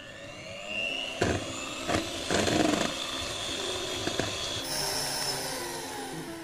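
Electric hand mixer running, its twin wire beaters whipping ice cream batter of cream powder and cold milk in a steel bowl, with a couple of sharp knocks about a second and two seconds in.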